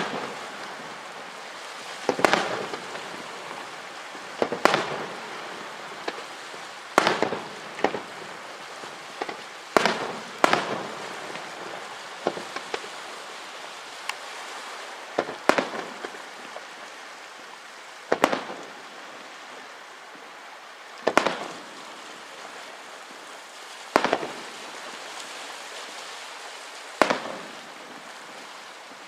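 Aerial firework shells bursting, one loud bang every two to three seconds with a few quick doubles, over a steady crackling hiss between the bursts.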